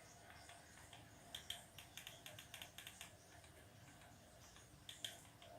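Faint clicks of buttons being pressed on a QBOX TV-box remote control: a quick run of clicks from about a second in to about three seconds in, then a single click near the end.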